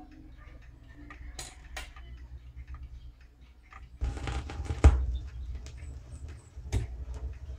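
Garrard 6-300 idler-drive automatic record changer working through its change cycle: small mechanical clicks and ticks as the tonearm swings over, then about four seconds in a steady groove hiss starts as the stylus sets down on the record, with a sharp knock about a second later and another click near the end.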